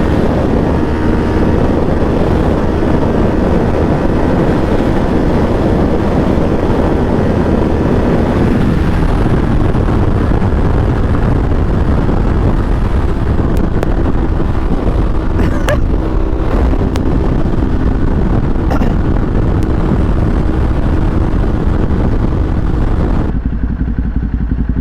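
Kawasaki Ninja 400's parallel-twin engine running on its stock exhaust while riding, mixed with wind rushing over the microphone. A few faint clicks come in the middle, and near the end the wind hiss drops away suddenly, leaving the engine.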